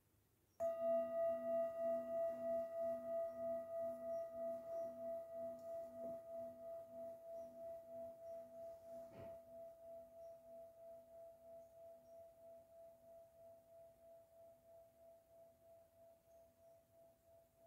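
Metal singing bowl struck once about half a second in, then ringing on with a slow wavering pulse and fading gradually, still sounding at the end.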